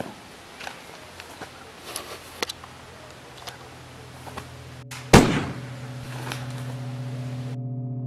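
A few faint clicks and rustles, then a single sudden loud bang a little after five seconds in that rings briefly. A low droning tone with a steady pitch follows, swelling gently and holding, gong-like.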